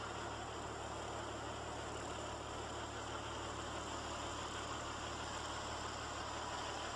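A vehicle engine running steadily under an even hiss, with no revving or change in pitch.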